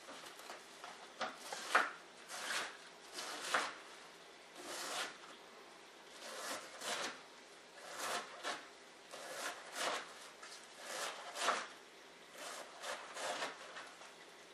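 Kitchen knife slicing through a head of iceberg lettuce and onto a cutting board, shredding it in short crisp strokes at an uneven pace, a little over one a second.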